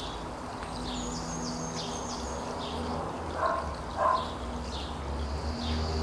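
Wind rustling the leaves of a swaying tree, with birds chirping repeatedly and two short, louder animal calls about halfway through.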